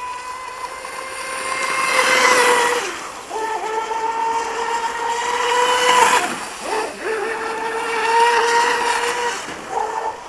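Brushless electric motor of an RC F1 racing boat (4S, 3660-size) whining at high throttle, a steady high-pitched whine that dips in pitch briefly three times. Surges of water hiss come about two seconds in and again near six seconds.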